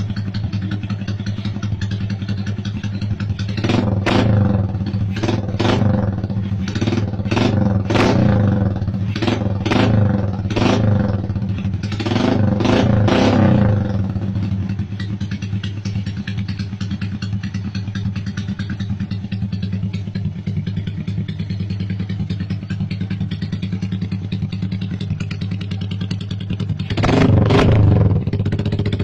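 Suzuki Smash 115 underbone motorcycle with an open exhaust idling, its small single-cylinder four-stroke blipped in a quick run of about nine short revs, then settling back to idle before one more rev near the end.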